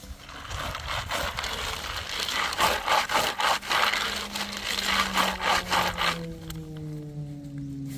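Gloved hands rubbing and stirring a basketful of ginkgo nuts in a plastic mesh basket: a dense clattering, scraping rattle of the hard shells against each other and the plastic. It eases off about six seconds in.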